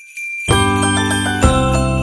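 Christmas-style background music with jingle bells. For the first half second only the high jingling is heard, then the full arrangement with bass and bell-like mallet tones comes in, with a strong beat about once a second.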